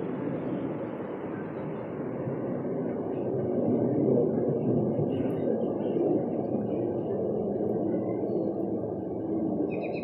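Steady outdoor background rumble with faint small-bird chirps in the middle and a short, rapid chirping trill at the very end.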